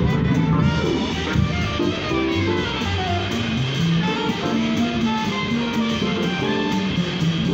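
Small jazz combo playing live: upright bass walking in stepped low notes under a drum kit keeping time on the cymbals, with electric keyboard and saxophone.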